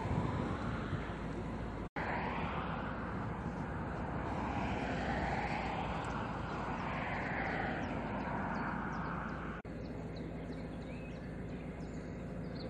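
Narrowboat's engine running steadily at low revs, a continuous drone with a hiss over it that swells and fades. The sound breaks off for an instant twice, and a few bird chirps come in near the end.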